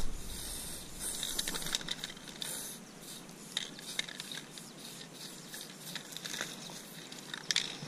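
Aerosol spray paint can hissing in several short bursts as paint goes onto the wall, with light clicks between them.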